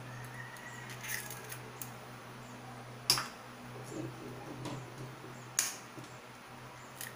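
Two sharp knocks about two and a half seconds apart, from eggs being cracked against a stainless steel mixing bowl, with softer handling sounds in between. A steady low hum runs underneath.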